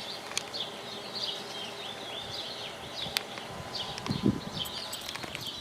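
Small birds chirping over and over, with a few sharp clicks and a dull thud about four seconds in.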